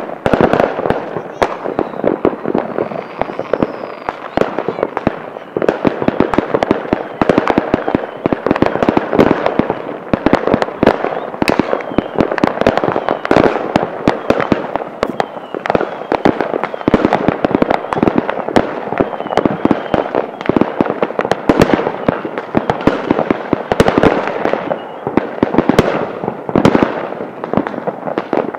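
Fireworks and firecrackers going off nonstop, a dense crackle of many sharp bangs each second, with a few faint whistles here and there.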